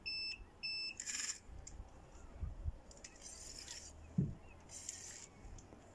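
Two short electronic beeps, then three short rasping bursts from a spinning reel as a heavy cod pulls on the bent rod, with a single dull knock against the boat just after four seconds.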